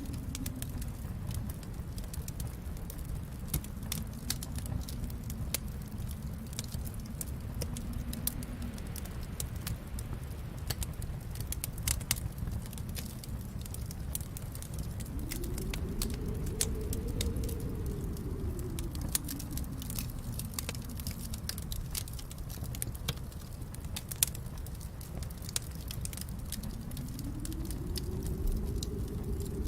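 Wood fire in a fireplace crackling, with many small sharp pops over a steady low rumble of the flames. The rumble swells and fades slowly a few times.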